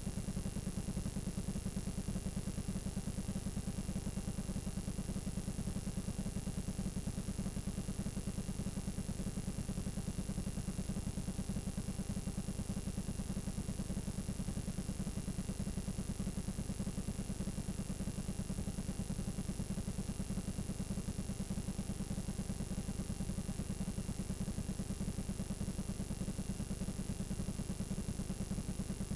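Steady low electrical buzz with a thin high whine over it: the playback noise of a blank stretch of videotape showing only snow.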